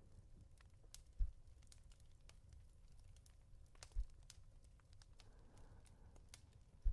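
Slow, soft pats on a pillow, three dull thumps about two and a half to three seconds apart, over fireplace crackle that ticks irregularly throughout. A faint breath comes about five seconds in.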